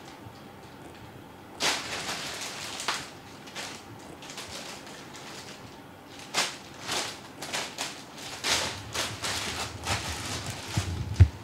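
Thin plastic bag crinkling and rustling in short irregular bursts as a cat paws at it and another cat shifts inside it. A few dull low thumps near the end, the sharpest just before it stops.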